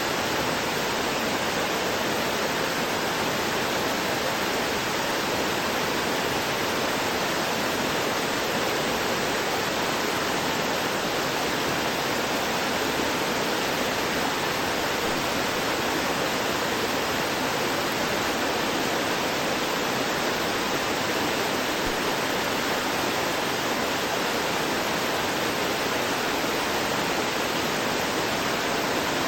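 Small waterfall splashing and gurgling over rocks, a steady, unbroken rush of water.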